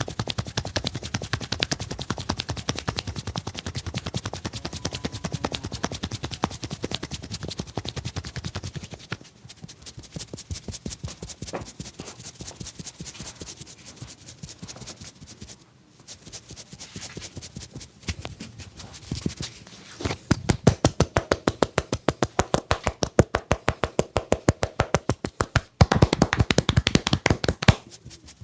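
Massage strikes by hand: fast, rhythmic tapping and slapping on the head and body, several strikes a second, in long runs that ease off in the middle and come loudest near the end.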